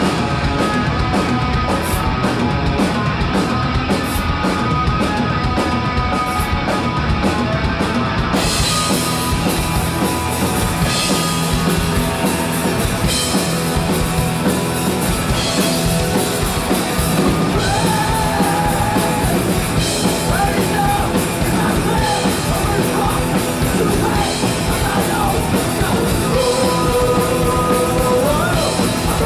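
Live rock played loud by a two-piece band: electric guitar through a Marshall amp and a full drum kit. About eight seconds in the cymbals change from regular separate hits to a steady wash. A man's singing comes in during the second half.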